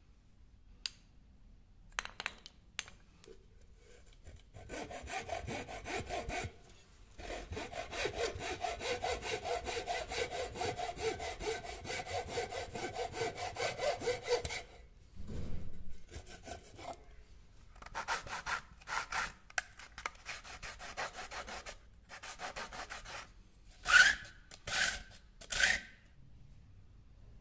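Fine-toothed hand saw cutting through a small piece of softwood in quick, even back-and-forth strokes, in spells with short pauses. Near the end come three short, louder sounds.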